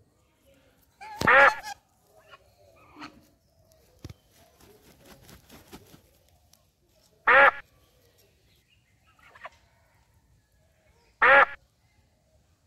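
Domestic geese honking: three loud single honks, about a second in, about seven seconds in and near the end, with faint rustling between them.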